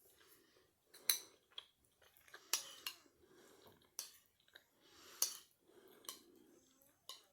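Someone eating: quiet chewing, broken by sharp clicks of a utensil against a dish about once a second.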